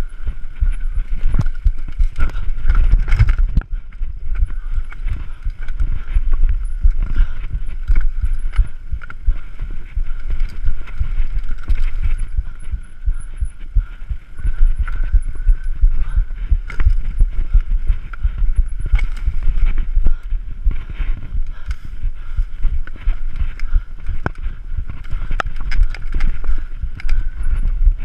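Mountain bike descending rough dirt singletrack at speed, heard from a chest-mounted action camera: continuous clattering and knocking of the bike over roots and rocks, tyres on dirt and a heavy low rumble.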